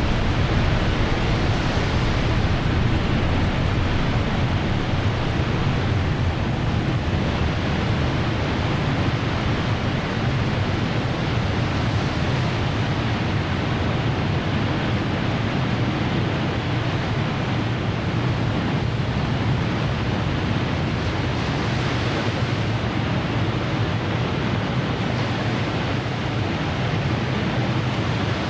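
Steady rushing noise with a heavy deep rumble beneath it, like distant surf or wind, with no tones, beats or distinct events.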